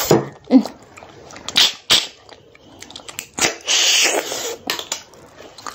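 Close-up mouth sounds of cooked snails being eaten by hand: a run of wet smacks and sucks, with one longer, loud slurp about four seconds in as the meat is sucked from a shell.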